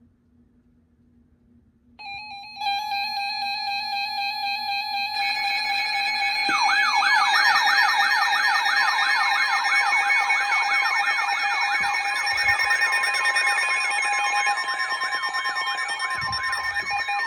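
Layered electronic alert tones: several steady tones start together about two seconds in, more join a few seconds later, and from about six seconds an electronic siren sweeps up and down about three times a second over them.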